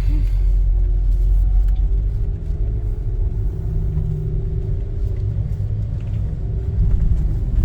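Low, steady rumble of a car's engine and tyres heard from inside the moving car's cabin, with a faint engine tone rising slightly as it pulls away.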